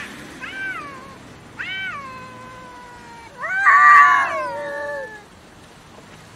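Domestic cat yowling aggressively at another cat over food, three times. First comes a short call, then a longer one that trails off, then the loudest and harshest call about three and a half seconds in. Each call rises and then falls in pitch.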